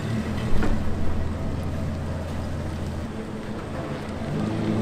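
Engine of a Toyota LandCruiser 70-series ute driving away, a steady low drone, with a single thump about half a second in. Music comes in near the end.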